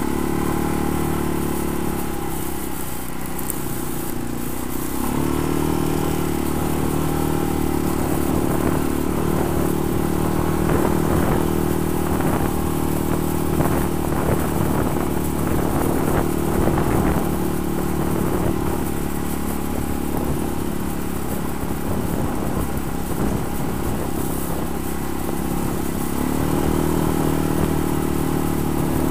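ATV engine running steadily under way. Its pitch drops about two seconds in, rises again about five seconds in, and rises once more near the end. From about eight to eighteen seconds a run of clicks and clatter rides over the engine.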